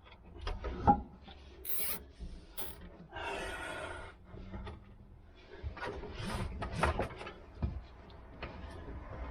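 Hands working wiring inside a car: scattered clicks, knocks and rubbing, with a rasping run lasting about a second around three seconds in, a nylon cable tie being pulled tight around the wire bundle.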